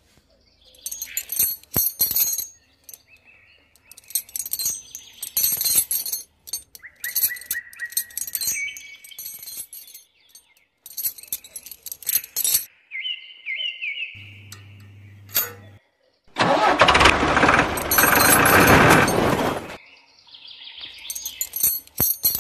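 Small metal chain clinking and jingling in short bursts as it is handled and hooked on, with a couple of brief whistle-like tones. About three seconds of loud, steady rushing noise starts around two-thirds of the way through and is the loudest sound.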